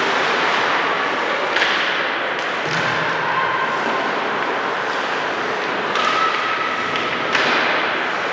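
Steady noise of a game on ice, broken by several sharp knocks and thuds, typical of sticks and a puck or ring striking the boards, with some brief ringing after the impacts.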